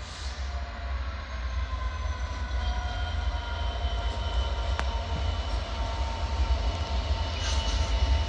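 A train running by, with a steady whine that drifts slowly down in pitch over a low rumble, and a single sharp clack about halfway through.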